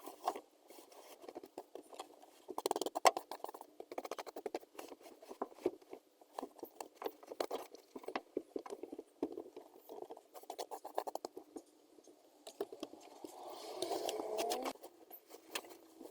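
Rapid, irregular patter of small clicks, taps and rustles.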